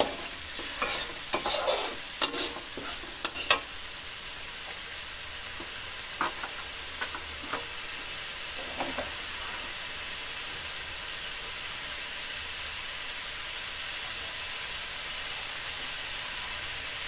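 Ground chili and tomato spice paste frying in a metal wok, a steady sizzle throughout. A metal spatula scrapes and taps against the pan in the first few seconds and a few more times around six to nine seconds in, after which only the sizzle remains.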